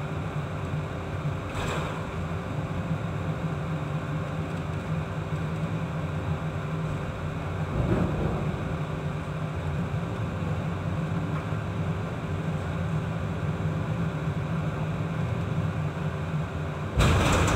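A ship's engine and machinery humming steadily under the rush of heavy seas and wind. Short surges of wave and wind noise come about two and eight seconds in, with a louder one near the end.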